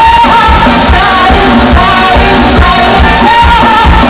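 A live band playing loudly, with a woman singing lead over a steady bass beat.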